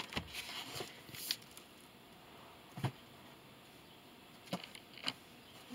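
Quiet handling of books: a faint rustle in the first second, then a few soft, separate taps and knocks about a second or two apart as one book is set aside and the next picked up.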